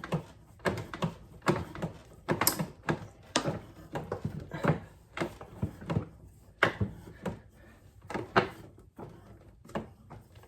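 Vise grips clamped on a rusted metal wheel bushing being wiggled and twisted to work it off a push mower's axle: irregular metal clicks and knocks, one or two a second.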